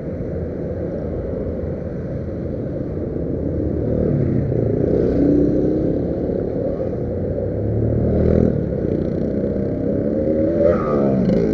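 Motorcycle ride with wind rushing over the microphone and road noise, and engine notes that rise and fall in pitch as the bike and nearby traffic speed up; an engine note climbs steadily over the last few seconds.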